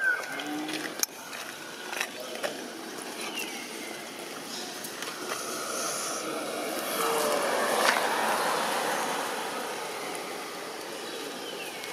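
A vehicle passing by, its sound swelling to a peak about two-thirds of the way through and then fading, over outdoor background with a few brief faint calls or voices near the start.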